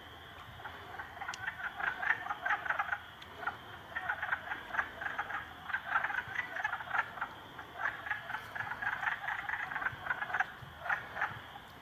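A chorus of wood frogs calling: many short croaks in quick, overlapping runs, sparser for the first second and then dense.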